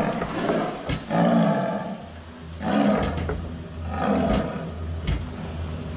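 Caged Asiatic lioness snarling and roaring in about four harsh bursts, a second or so apart.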